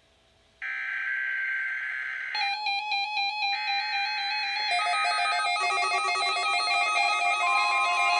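Emergency Alert System SAME header data bursts, a harsh buzzy warble, broken by a short silent gap. About two seconds in, an electronic melody of buzzy square-wave notes begins and grows fuller as more notes join.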